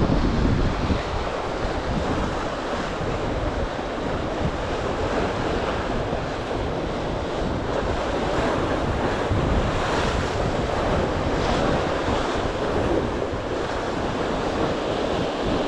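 Sea surf washing steadily along a jetty, with wind rumbling on the microphone.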